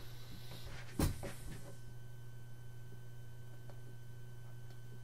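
Steady low electrical hum with faint room tone, broken by one sharp click about a second in.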